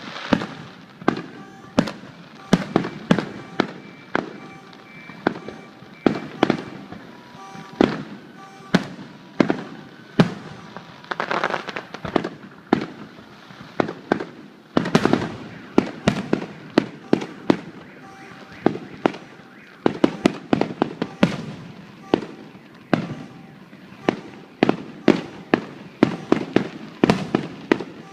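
Consumer fireworks going off throughout: a dense run of sharp bangs, several a second, with a stretch of crackling about eleven seconds in and a louder burst about fifteen seconds in.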